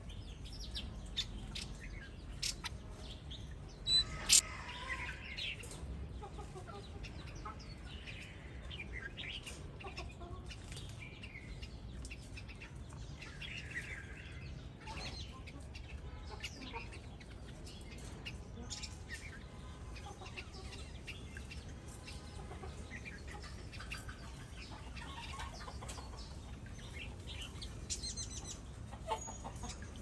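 Chickens clucking and small birds chirping in scattered short calls, with a couple of sharp clicks about four seconds in.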